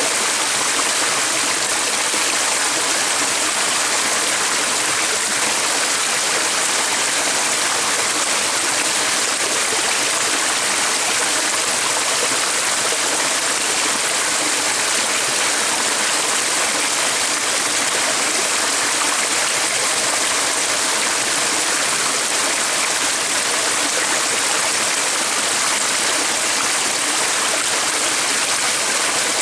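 Stream water flowing steadily: an even, unbroken rush with a bright hiss.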